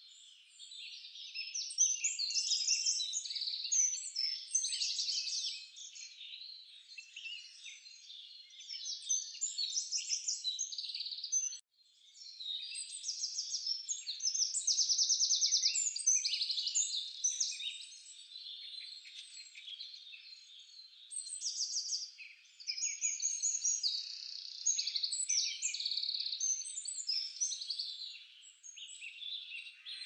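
A chorus of songbirds singing together: dense, overlapping rapid trills and chirps that swell and fade, cutting out for a moment about twelve seconds in.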